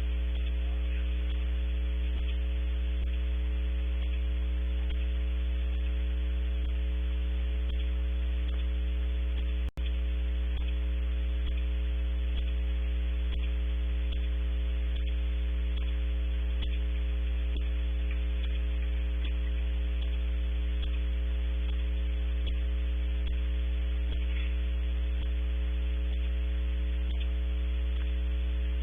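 Steady electrical hum on the owl-cam's audio feed, a low buzz with several higher overtones, sounding like a fault in the sound. The hum drops out for an instant about ten seconds in, then carries on unchanged.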